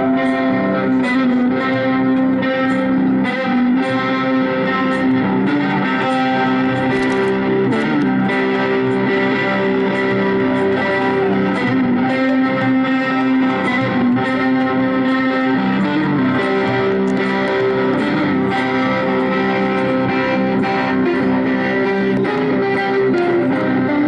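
Double-neck electric guitar played through a small amplifier, with an effects-coloured tone. Notes ring on over continuous picked chords.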